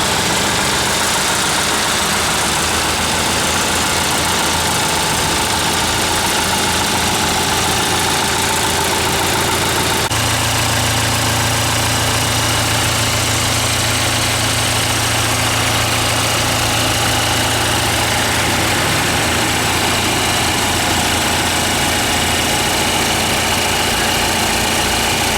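Mitsubishi 4D34 turbocharged four-cylinder diesel engine running steadily at idle on test. Its tone shifts abruptly about ten seconds in.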